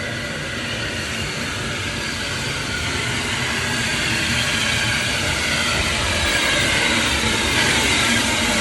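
A heritage railway train passing close by. Its running noise grows steadily louder, with faint wavering higher tones in the second half.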